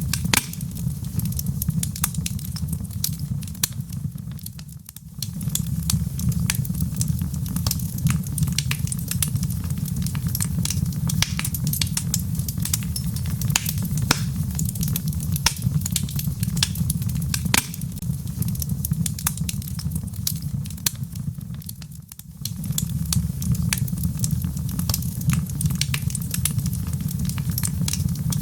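Wood fire burning in a fireplace: a steady low rumble of flames under dense, irregular crackling and sharp pops of burning logs. The sound dips briefly twice, about five seconds in and again past twenty seconds.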